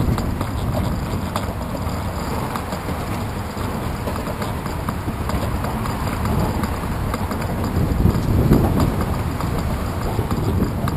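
Bicycle riding over a concrete path, heard through a handlebar-mounted GoPro Hero 2: steady low rumble and wind noise with a constant run of small rattling knocks from the bike and camera mount, a little louder about eight seconds in.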